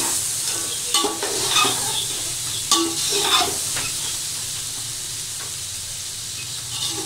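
Chicken and vegetables frying with a steady sizzle in a metal pot, stirred with a slotted metal spatula. The spatula scrapes and clinks against the pot several times in the first few seconds, then the sizzle goes on with fewer strokes.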